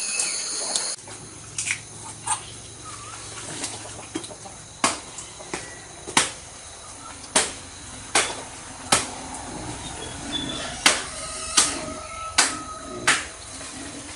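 Insect buzzing that cuts off about a second in, then a run of sharp knocks, about a dozen spaced unevenly roughly a second apart, with faint bird chirps between them.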